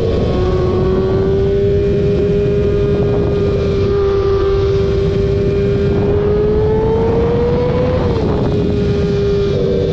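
Car engine held at steady high revs over a low rumble, its pitch creeping up near the end and dropping back suddenly about eight seconds in.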